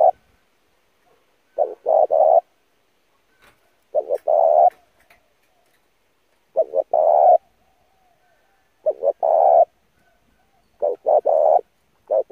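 Spotted dove cooing: a phrase of two or three short coos running into a longer, stronger coo, repeated about every two to two and a half seconds, five times over, with another phrase starting at the very end.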